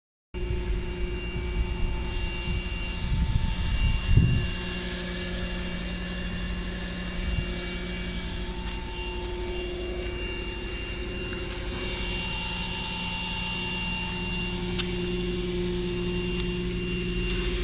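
Steady low mechanical drone made up of several steady tones, with a cluster of low rumbling bumps about three to four seconds in.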